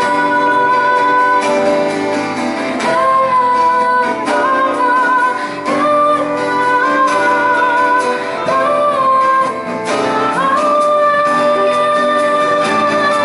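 A woman singing a song with acoustic guitar and a backing band of bass, drums and keyboard, played live. The singing comes in long held notes with a slight waver, in phrases.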